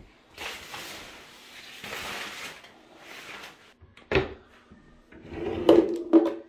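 A wooden bathroom vanity drawer being pulled open. After a stretch of soft rustling there is a click, then the drawer scrapes out on its runners with a low hum and a couple of sharp knocks.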